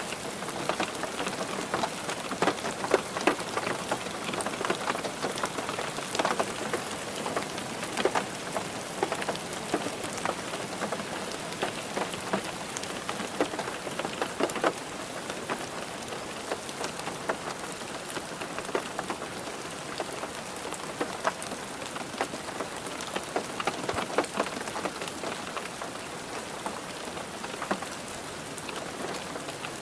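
Rain falling on a car roof: a dense, steady patter of drops with single heavier drops ticking out of it, easing slightly about halfway through.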